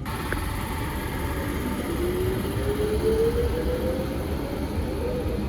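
A vehicle running, with a steady low rumble and hiss; a whine rises slowly in pitch through the middle of the sound.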